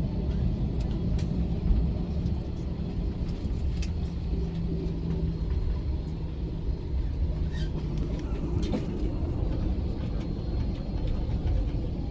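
Steady low rumble in an airliner cabin, the engine and rolling noise of the plane on the ground just after landing, with a few faint clicks.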